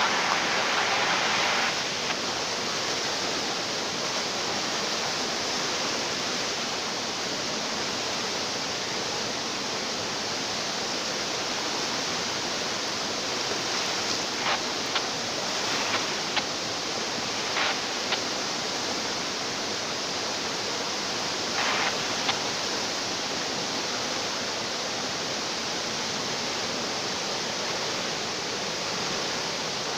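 Flash-flood water rushing in a swollen river, a steady dense noise of fast-flowing water, with a few brief faint knocks about halfway through.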